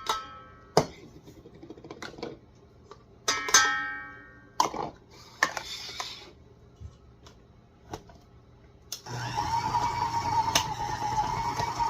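Knocks and clatter as ingredients go into a mixing bowl. About nine seconds in, a stand mixer with a paddle attachment starts and runs steadily with a whine, creaming shredded cheese, butter and salt together.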